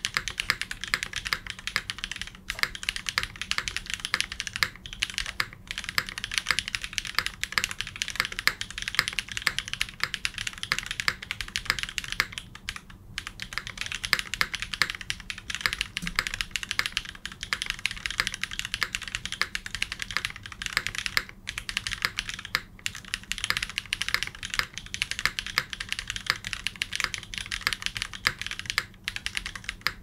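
Continuous fast typing on a Haven TKL mechanical keyboard with Cherry switches (black housings, teal stems), an aluminium plate, a foam-filled case and GMK Lavender keycaps. It is a dense stream of crisp keystrokes, broken by a few short pauses.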